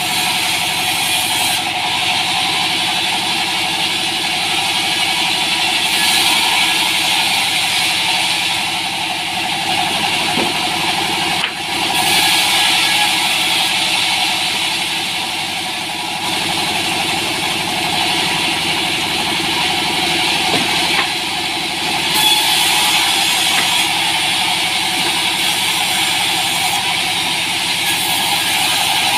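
Sawmill band saw running steadily while timber slabs are ripped lengthwise through its blade; the hiss of the cut swells and fades over several passes, with a brief drop about a third of the way in.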